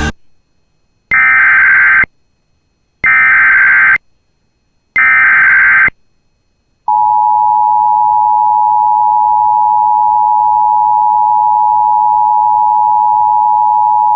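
Emergency Alert System header: three one-second bursts of SAME data tones, then, about seven seconds in, the steady EAS two-tone attention signal. Together they mark the start of a new severe thunderstorm warning.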